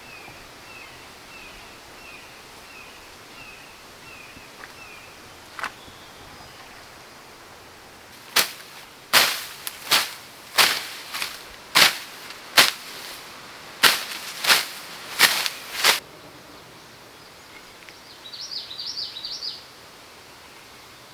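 About a dozen sharp knocks, like blows struck in quick, uneven succession, from about eight seconds in until about sixteen seconds. Earlier a bird calls repeatedly in short notes, and a brief burst of high chirps follows the knocks.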